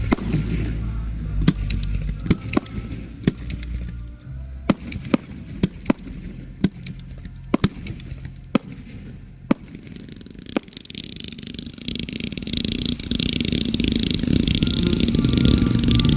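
Fireworks going off: a dozen or so sharp, separate reports over about ten seconds, with music playing under them. Near the end a louder, continuous noise builds up.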